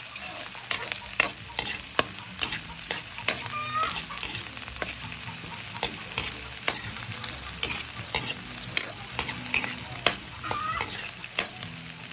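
Chicken feet frying in hot oil: a steady sizzle broken by frequent sharp, irregular pops and spatters.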